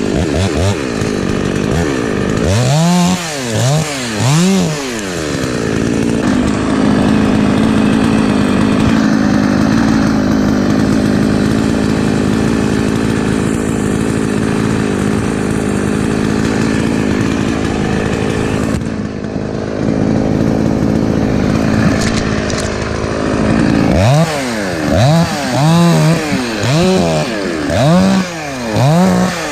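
Husqvarna 254 two-stroke chainsaw blipped up and down several times, then held at steady high revs for about a dozen seconds. Near the end it is revved up and down again in quick repeated blips.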